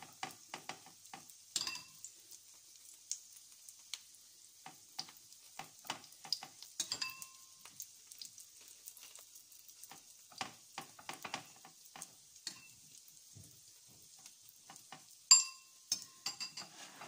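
Metal spoon scraping and tapping as beaten egg is spread over a slice of white bread on a ceramic plate, with a few short ringing clinks of the spoon against the dish, the loudest about fifteen seconds in. Under it, a faint steady sizzle of a bread slice frying in oil in the pan.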